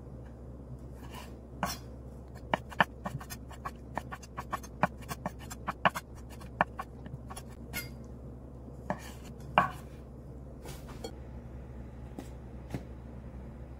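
Kitchen knife chopping raw scallops on a wooden cutting board: a run of sharp, irregular knocks, several a second at their busiest, thinning out to a few single strokes in the second half. A steady low hum runs underneath.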